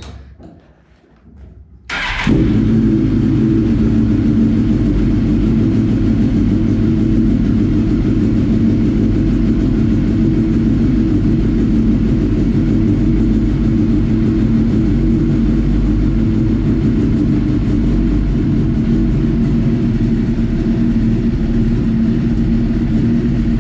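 Suzuki GSX-R 1000 K6's inline-four engine starts about two seconds in and settles into a steady idle, running on freshly replaced spark plugs.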